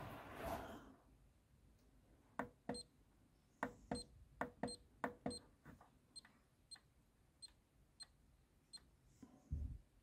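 Front-panel controls of an ATorch DC electronic load being clicked to set the discharge current: a series of short sharp clicks, quicker in the first half and more spaced later, many with a short faint beep from the unit. A soft low thump near the end.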